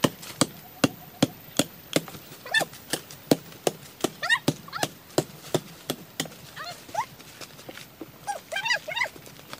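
A wooden stick striking again and again in sharp, evenly spaced knocks, about two or three a second. Short high chirping calls that rise and fall come in several times between them.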